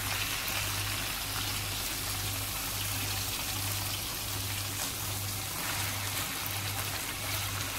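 Chicken skewers sizzling steadily in shallow oil in a nonstick frying pan as they are turned over one by one. A low hum pulses underneath, a little more than once a second.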